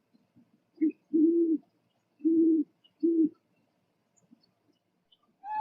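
Owl hooting: four low hoots, a short one followed by three longer ones, then a pause. Near the end a higher call begins, sliding downward in pitch.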